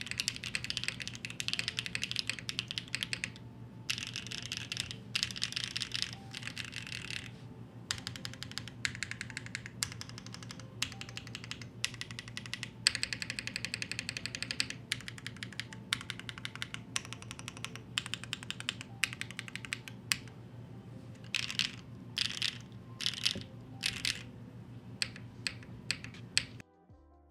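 Fast typing on a Neo75 Cu mechanical keyboard with linear BCP switches: runs of key strokes in bursts of a second or two, with short pauses between them, and a few separate strokes near the end. A faint steady low hum lies underneath.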